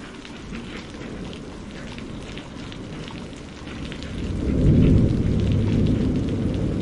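Steady rain pattering, with a roll of thunder building about four seconds in, peaking a second later and slowly fading.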